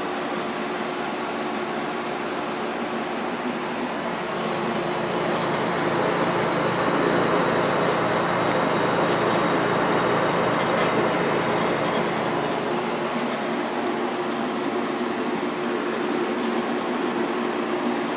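GE 8,100 BTU window air conditioner running on low cool just after its Gree compressor has started, the compressor humming steadily under the fan. The noise swells louder for several seconds in the middle, then settles back.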